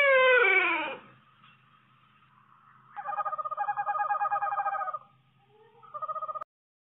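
Animal calls: a call falling in pitch, then after a pause a long call with a rapid quavering pulse and a shorter one like it, which cuts off suddenly.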